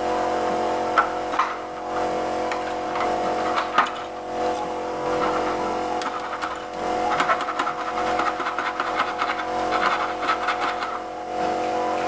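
A flat metal hand tool scraping and clicking against an aluminium door-frame profile: a few sharp clicks early on, then a fast rasping run of strokes from about seven to eleven seconds in. A steady droning hum of several held tones sits underneath.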